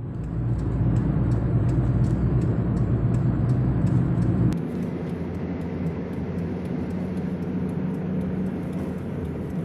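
Steady engine and road rumble heard from inside a moving vehicle. About four and a half seconds in the deepest part of the rumble drops away and the sound gets a little quieter; before that a faint ticking repeats about three times a second.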